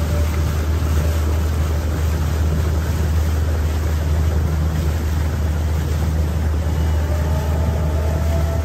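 Motorboat engine running steadily at cruising speed, a low drone under the constant rush of water past the hull.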